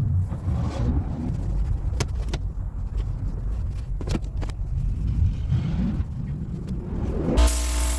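Low rumble with a few sharp clicks and knocks. Near the end a Tornador air-blowing cleaning tool bursts on with a loud hiss of compressed air and a buzzing tone, blowing debris out of the car interior.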